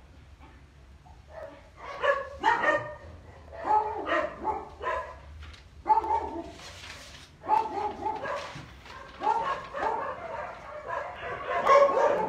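Several dogs barking over and over in quick, irregular volleys, starting about a second and a half in, set off by someone in the street.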